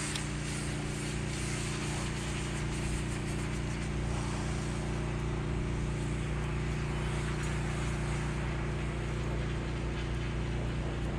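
A boat's motor running steadily: a low, even hum made of several steady tones under a constant hiss.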